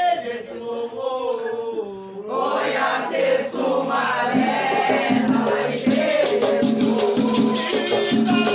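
Batuque ritual song sung call-and-response: a lead voice sings a line alone, then a group of voices answers in chorus about two seconds in. Near six seconds in a shaker starts a quick, steady rhythm under the singing.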